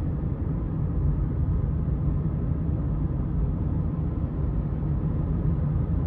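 Steady low rumble of a car on the road, engine and tyre noise heard from inside the cabin.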